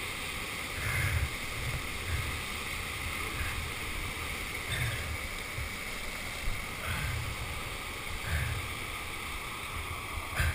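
Whitewater rushing and churning in a river hole, picked up by a helmet-mounted camera, with low thuds every second or two.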